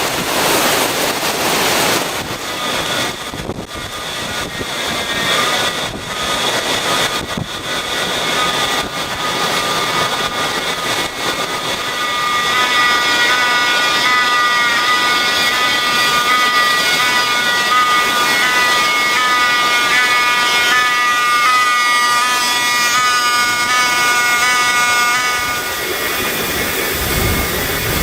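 Hurricane-force wind, a loud steady rush, with a high whistling howl of several tones that comes in a few seconds in, grows stronger, and fades near the end.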